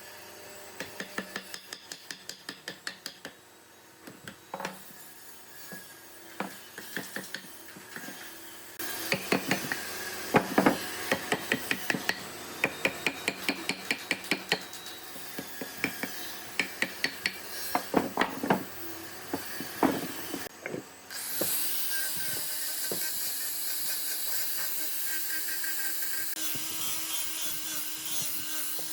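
Woodworking tool sounds: runs of sharp knocks and taps on wood, about four a second at first and louder through the middle. About two-thirds of the way in they give way to a steady whir.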